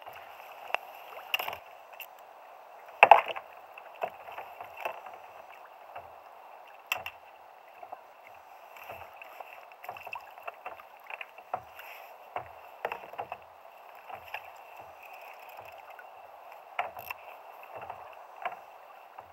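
Small waves lapping and slapping against a sit-on-top kayak's hull, with irregular knocks and clicks from the boat and gear, the loudest about three seconds in.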